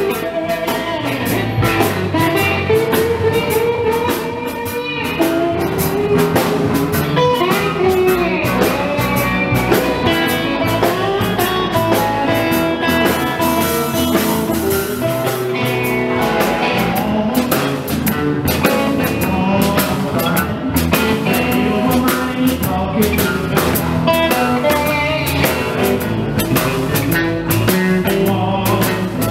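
Live band playing: electric guitar leading over a second guitar and a drum kit keeping a steady beat.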